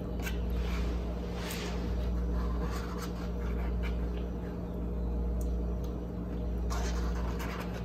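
Soft scrapes and light clicks of a plastic fork and fingers picking food from a plastic takeout container, over a steady low hum.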